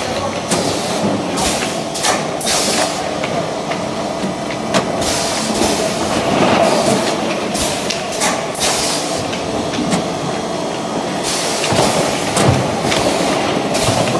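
Factory noise of a thermoforming vacuum-packaging line running: a steady mechanical hum broken by repeated short bursts of hissing and a few sharp clacks as frozen fish blocks are handled.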